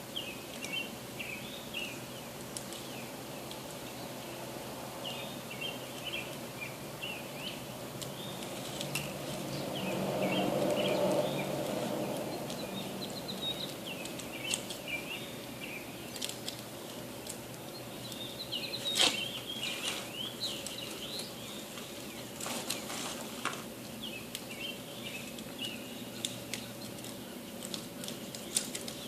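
Birds chirping over and over above a steady low hum. A rush of noise swells and fades about ten seconds in, and a few sharp clicks come about two-thirds of the way through.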